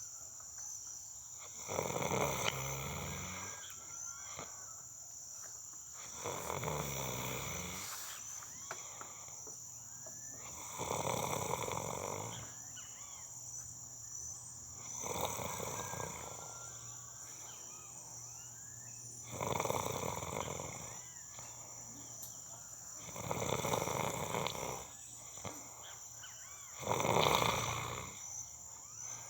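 A person snoring: seven loud snores of about a second each, one roughly every four seconds. Behind them, crickets or other insects chirr steadily.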